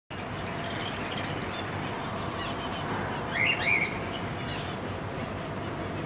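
A flock of caged budgerigars chirping and chattering over a steady background hum, with the loudest burst of rising and falling chirps about three and a half seconds in.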